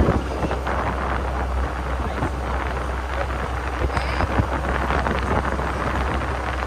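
Wind buffeting the microphone on a moving open Willys Jeep, with a steady low rumble from the vehicle and road underneath.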